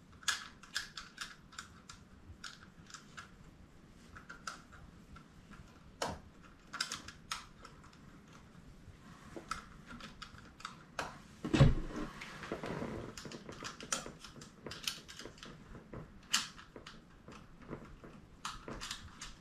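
Small hard clicks and taps, irregular and a few per second, from the nuts being threaded by hand onto the bolts of an e-foil motor's mast clamp, with one louder knock about twelve seconds in.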